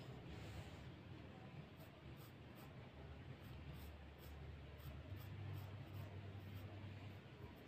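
Pencil scratching on drawing paper in short, light strokes, faint, over a steady low hum.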